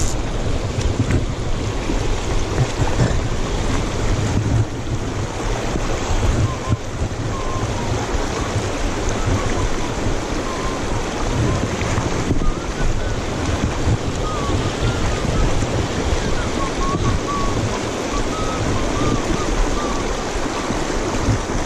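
Steady rush of a shallow, rocky river riffle, with wind buffeting the microphone. From about six seconds in, a person whistles a soft, wandering tune over the water.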